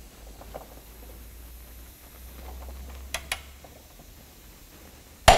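Click-type torque wrench being pulled on a BMW E46 rear subframe bolt: faint creaking and two small ticks about three seconds in, then a loud sharp click near the end as the wrench releases at its set torque of about 120 Nm.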